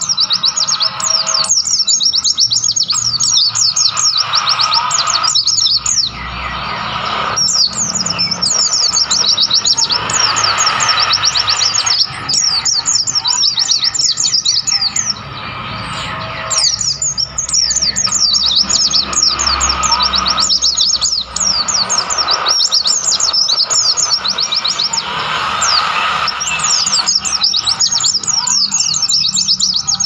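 White-eyes (pleci) singing: long phrases of fast, high, downward-slurred chirps lasting several seconds each, broken by short pauses.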